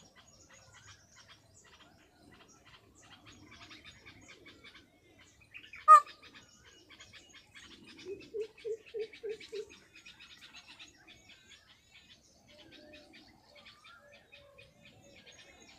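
Birds calling: faint, high chirping goes on throughout. About six seconds in comes one short, loud call that falls in pitch. Two seconds later there is a quick run of six low, evenly spaced hooting notes.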